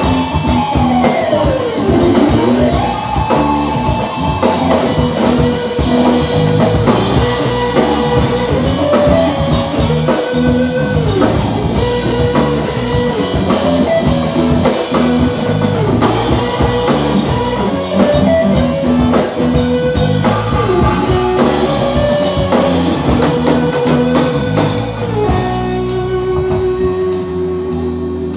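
Live rock band: an electric guitar solo of long sustained notes, one bending steeply down in pitch and back up near the start, over a drum kit keeping the beat. Near the end a single note is held.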